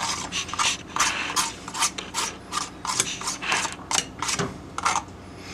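Spoon scraping a congealed frozen dinner out of a plastic frozen-dinner tray into a glass coffee carafe: repeated short rasping strokes, about two or three a second.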